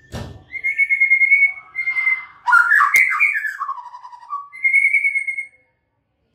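White-rumped shama singing: loud clear whistled phrases at much the same pitch, then a quick run of notes falling in pitch, stopping about a second before the end. A short thud at the very start and a sharp click about three seconds in.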